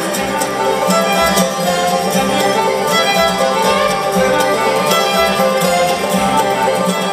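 Live bluegrass band playing an instrumental break between sung verses, a fiddle to the fore over banjo, guitar, mandolin and upright bass.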